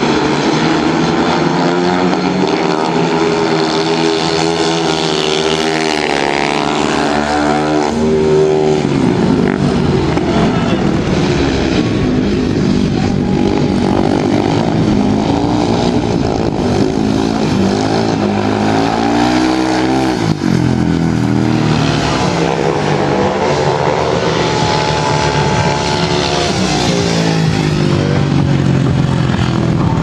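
Speedway motorcycles' 500 cc single-cylinder methanol engines racing around the track in practice, loud and continuous, their pitch rising and falling over and over as the riders accelerate and shut off for the bends. Near the end one engine climbs sharply in pitch under acceleration.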